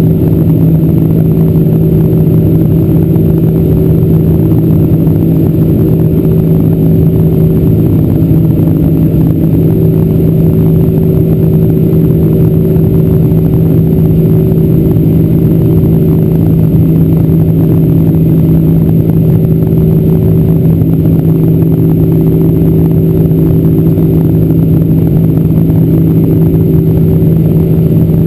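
Boeing 747-400 cabin drone from its General Electric CF6-80C2 turbofans at climb power. It is a loud, steady hum with a strong low tone and a few fainter tones over a rushing airflow noise.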